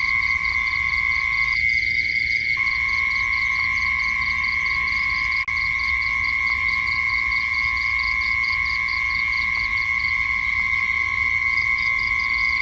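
Night insects calling: a constant high-pitched buzzing drone, with a rapid chirping pulse above it at about five pulses a second. The sound cuts out for an instant about five seconds in.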